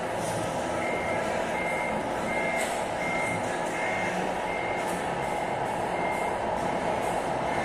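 Reversing beeper of a radio-controlled scale model Scania R620 truck as it backs up: six short, high, evenly spaced beeps, about three every two seconds, that stop about five seconds in. A steady hum of hall background noise runs underneath.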